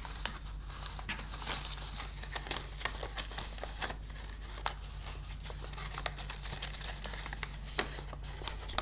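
A sheet of origami paper rustling and crinkling as hands fold it and push its corners inward, with many small irregular crackles and taps.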